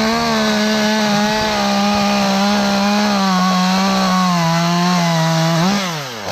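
Two-stroke chainsaw running at high revs, its pitch sagging slowly, then falling away as the throttle is let off near the end before it revs up again.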